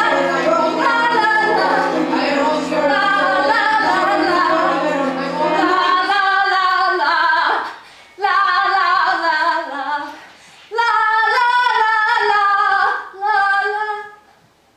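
A woman singing long phrases with a wavering pitch, over low held notes that stop about six seconds in. The singing breaks off briefly a few times and ends just before the close.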